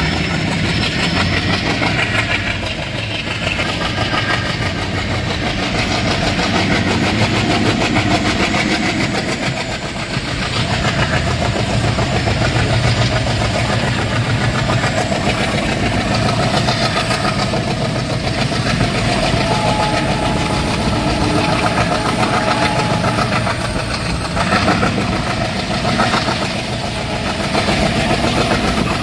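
ALCO diesel locomotive chugging steadily as it hauls the train, heard from the door of a coach behind it.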